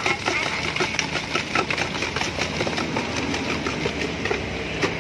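Hot oil sizzling in a wok of frying food, with many small irregular crackles and pops over a low steady hum.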